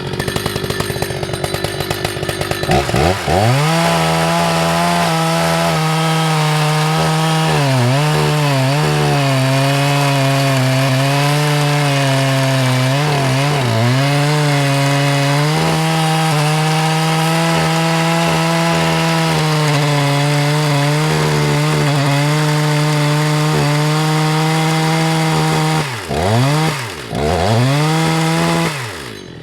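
Husqvarna 181 SE two-stroke chainsaw revving up to full throttle about three seconds in and cutting through a large beech log. The engine note sags briefly twice under load in the cut. Near the end the throttle is let off and blipped twice before the saw drops back.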